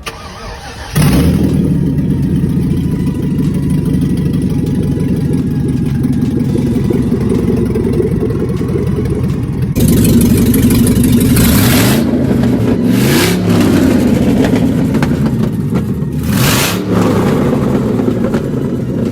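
Cadillac CTS-V's supercharged 6.2 L LSA V8, freshly fitted with an aftermarket cam, cranking and firing up about a second in, then running loud and steady. It is revved up and back down twice in the second half. This is the engine's first start after the cam install.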